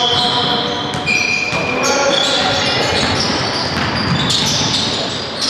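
Basketball being played in an echoing sports hall: shoes squeak repeatedly on the court floor in short high squeals, the ball bounces now and then, and players call out.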